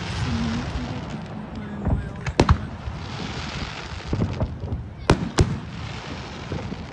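Aerial fireworks bursting: sharp bangs about two seconds in, two more about five seconds in and another near the end, with a hissing crackle between them.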